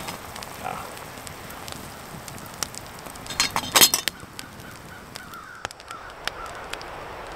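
Wood campfire crackling with scattered sharp pops, and about three and a half seconds in a short cluster of loud metallic clanks as the iron lid is set back onto the hanging stew pot.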